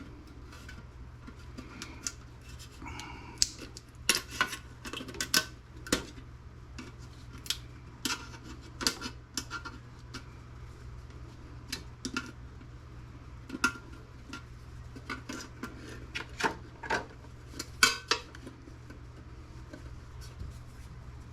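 Irregular metallic clinks and clicks of hand tools against the sheet-steel parts of a desktop computer being pried and unclipped apart, some two dozen sharp knocks, the loudest about three-quarters of the way through, over a low steady hum.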